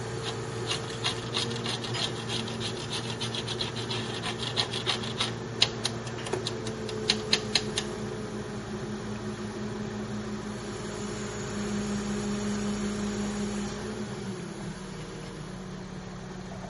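Quick, irregular clicking from hand-tool work at the joint between pre-cast wall panels, lasting about eight seconds. Under it an engine idles with a steady hum that swells for a couple of seconds later on, then settles.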